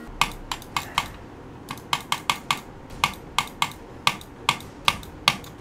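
Someone typing on a computer keyboard: a run of sharp, irregularly spaced key clicks, about three or four a second.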